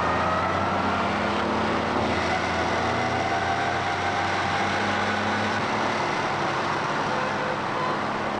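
Motorcycle engines running steadily at cruising speed, a continuous drone whose pitch shifts slowly.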